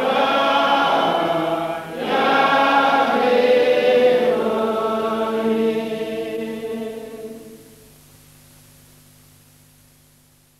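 A choir singing two long held chords, the second dying away over several seconds into faint hiss.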